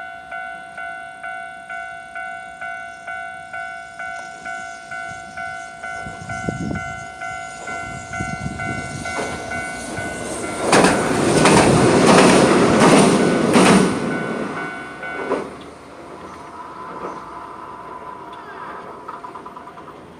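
Japanese level-crossing warning bell ringing about twice a second while a Hiroden train approaches and passes over the crossing. The train's rumble and wheel clatter over the rail joints are loudest from about eleven to fourteen seconds in. The bell stops a little after the train has passed.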